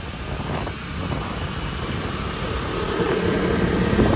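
Steady low rumble of road traffic and a moving vehicle, growing slightly louder, with a faint pitched sound joining near the end.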